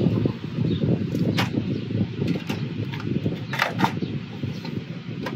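MSI graphics card being pushed into a PC motherboard's PCIe slot: low rubbing and handling noise with several sharp clicks and knocks as the card and its bracket are seated in the case.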